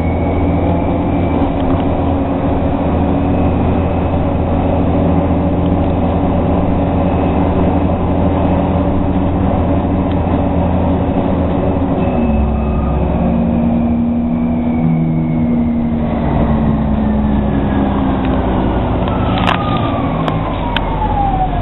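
Interior of a TTC Orion VII NG hybrid bus under way, with a steady low drivetrain hum and the high whine of its electric drive. About halfway through the whine begins to fall steadily in pitch as the bus slows. A few sharp clicks come near the end.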